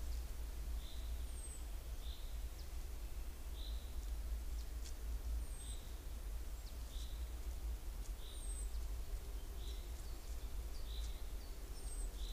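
Woodland birds calling: one repeats a short note about once a second, while another gives a thin, high, falling call every couple of seconds, over a steady low rumble.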